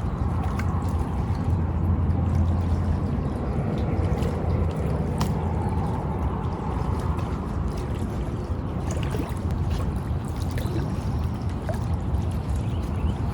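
Steady low rumble of wind on the microphone mixed with river water, with a few faint light clicks.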